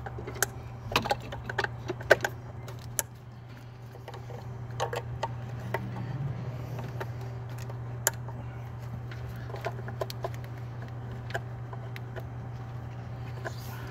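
Clicks and small knocks of electrical connectors being plugged in by hand in an engine bay, bunched in the first three seconds and sparse after, over a steady low hum.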